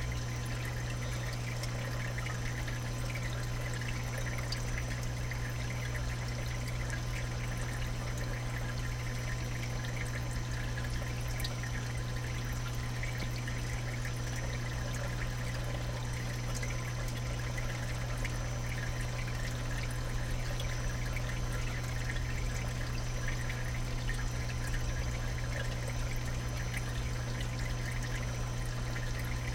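Saltwater aquarium sump water trickling and splashing steadily, with a constant low hum underneath.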